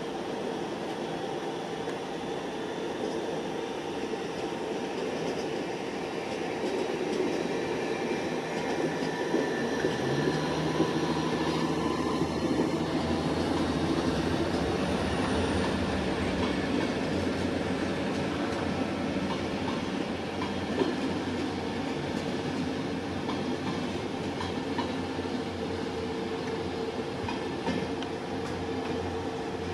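Locomotive-hauled passenger train with a red DB electric locomotive rolling slowly through a station: a steady rumble of wheels on rails with scattered clicks. It swells a few seconds in, and a low electric hum rises in pitch about ten seconds in.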